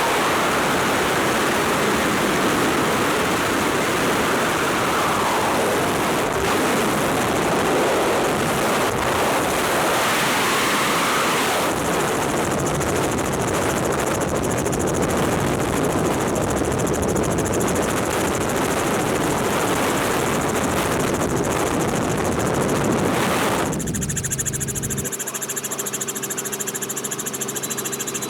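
Robinson R44 helicopter's engine and rotor noise buried under a heavy, steady rush of wind, loud because the doors are off. About 24 seconds in, the wind rush drops away sharply and a steady mechanical hum with several pitched tones from the engine and rotors comes through.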